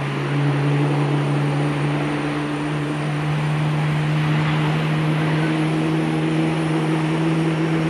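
Airliner jet engines, the Rolls-Royce Trent 1000s of a Boeing 787-8, running as it rolls out along the runway just after touchdown. A steady roar with a low hum that rises slightly in pitch.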